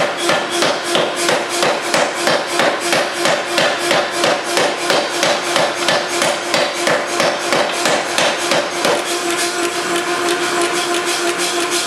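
3B Nazel power forging hammer with its 265 lb ram pounding a red-hot stainless-steel billet in rapid, evenly spaced blows, about three and a half a second, drawing the billet down. Around nine seconds in the blows turn light while the hammer's steady running hum carries on.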